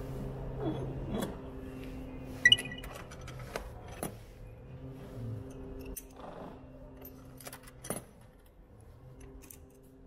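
Metal clicks and clinks from a vending machine's hinged coin-slot flap being pushed and coins being handled, with one sharp metallic clink about two and a half seconds in. A low steady hum runs underneath.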